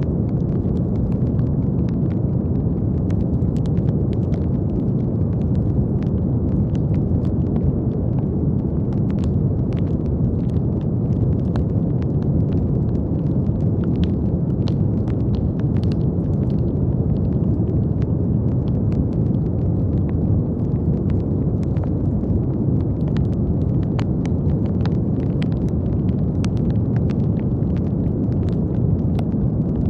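Brown noise: a steady, deep rumbling hiss weighted toward the low end, with faint scattered crackles on top.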